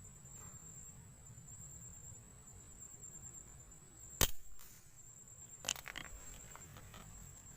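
A single sharp crack of an air-rifle shot about four seconds in. About a second and a half later comes a quieter crack, followed by a few small clicks. A steady thin high-pitched tone runs underneath.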